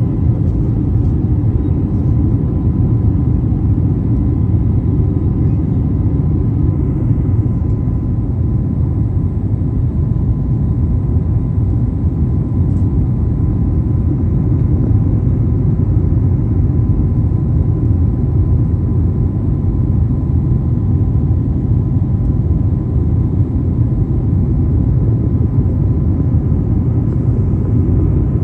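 Steady low rumble of an airliner's jet engines and rushing air, heard inside the cabin at a window seat during the climb after takeoff, with a faint steady whine over it.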